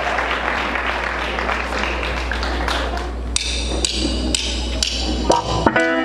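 A low steady hum under a background hiss, then from about three seconds in sharp ticks about twice a second. Near the end a Suhr Classic Pro electric guitar through a Bogner amp and an electric keyboard start playing.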